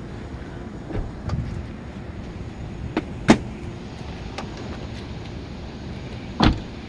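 Car doors being shut: several sharp thuds, the loudest about three seconds in and another near the end, over a steady low rumble.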